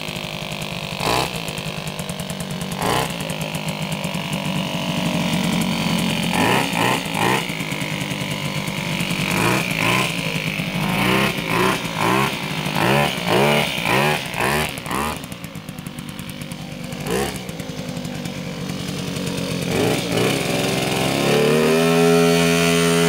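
Puch Maxi moped's two-stroke engine, bored to 70cc, running and revved hard in many short blips, then pulling away with a rising note near the end.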